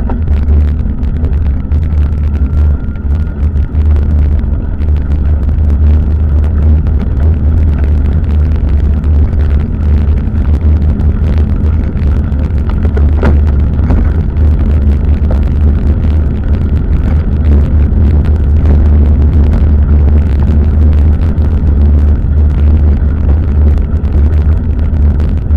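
Wind and road rumble on the microphone of a bicycle-mounted camera while riding, a loud, steady deep rumble with a noisy hiss above it.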